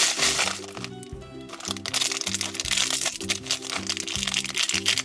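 Crinkling and crackling of the thin plastic wrapper of an LOL Surprise ball and a foil blind bag being unwrapped and handled by hand, easing briefly about a second in. Background music plays underneath.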